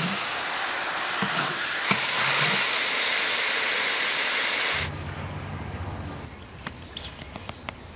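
A steady hiss cuts off suddenly about five seconds in. A quieter low hum follows, with a few light clicks near the end.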